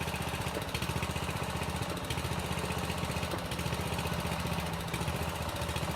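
Small engine of the hydraulic machine that drives the pier jacks, running steadily under load as the porch is lifted.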